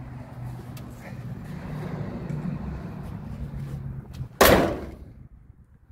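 The steel hood of a 1963 Chevrolet Impala is slammed shut once, a single loud bang about four and a half seconds in. Before it, a low steady hum.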